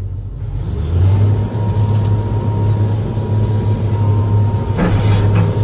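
Excavator's diesel engine running and throttling up about a second in, with a steady hydraulic whine as the boom and bucket move. Brief crackling near the end.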